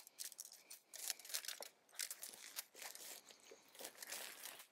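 Shock-corded aluminium tent pole sections being unfolded and snapped together: a run of light clicks and rattles with some rustling.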